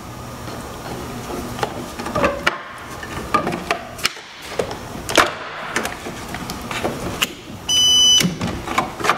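Jumper clamps and cables clicking and knocking as they are handled and fitted, then a loud, high-pitched half-second beep from the Rugged Geek lithium-ion jump starter pack a little under eight seconds in: the pack coming to life, which signals that it is connected and live.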